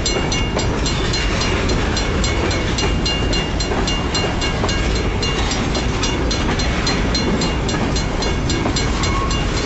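Railroad crossing bell ringing with rapid, even strokes over the steady rumble and wheel-on-rail noise of a long BNSF grain train of railcars rolling past the crossing.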